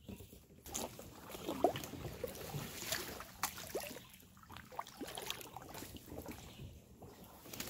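Kayak paddling on a river: an uneven run of small splashes and drips as the paddle blades dip in and out of the water.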